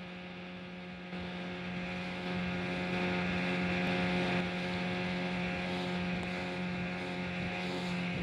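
Small speedboat's outboard motor running at speed, a steady drone that holds one pitch, with a hiss of wind and spray. It fades in at the start.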